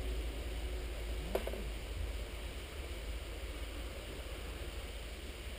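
Steady low rumble with an even hiss, broken once by a single sharp click about a second and a half in.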